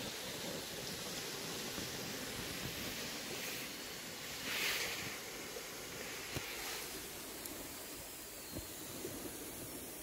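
Small waves washing onto a sandy shore, a steady hiss that swells once about halfway through, with a few sharp crackles from a burning wood campfire in the second half.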